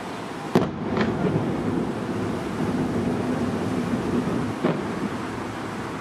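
Aerial firework shells bursting over the bay: a sharp bang about half a second in, another just after, and a third near five seconds in. Between them, a continuous rolling rumble of bursts echoes off the hills that ring the bay.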